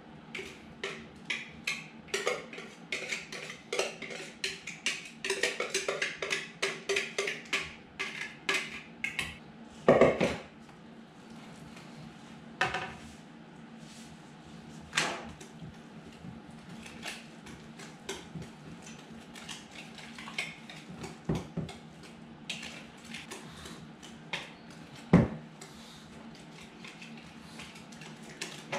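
Spoon clinking and scraping against a mixing bowl as batter is stirred, wet ingredients being worked into the dry. Quick strokes for the first nine seconds or so, then occasional single knocks, the loudest about ten seconds in.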